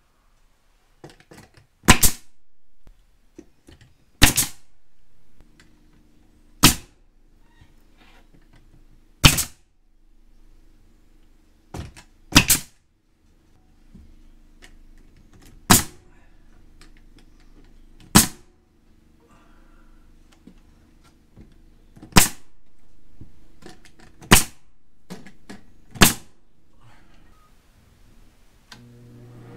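Pneumatic nail gun firing nails one at a time through a wall-lining sheet into wooden studs: about eleven sharp bangs, one every two to three seconds. A steady low hum runs underneath from about five seconds in.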